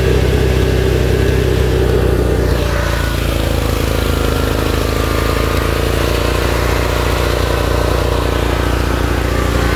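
Offroad-modified lawn tractor's small engine running steadily as the tractor is driven, a dense, even engine note with rapid firing pulses.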